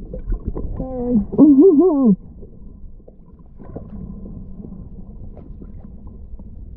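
Underwater recording. A snorkeller's muffled, wavering voice sounds out into the water for about a second and a half, then stops about two seconds in. After that comes low rumbling water noise through the camera housing, with faint scattered clicks.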